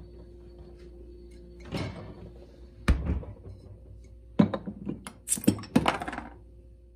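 A mini fridge door thunks shut, then a glass bottle is opened on a wall-mounted steel bottle opener: a quick run of sharp metal-on-glass clicks and clinks as the cap catches on the opener and is levered off.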